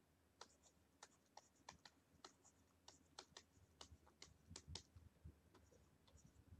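Faint, irregular clicking at a computer: a dozen or so short, sharp clicks of buttons being pressed while drawing on screen.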